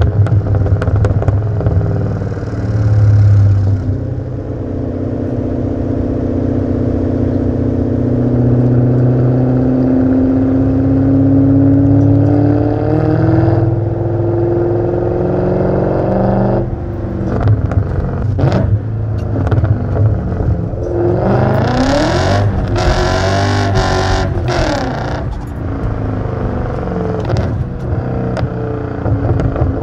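Straight-piped BMW E39 M5's 4.9-litre V8 exhaust, heard from inside the cabin while accelerating: the note climbs steadily in pitch for several seconds, breaks off, then rises and falls again with a noisier stretch near the end.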